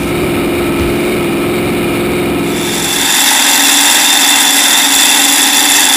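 Supercharged V8 engine of a light-modified pulling tractor running hard, heard from on board. About two and a half seconds in it gets louder and harsher, with the throttle opened further as the tractor pulls down the track.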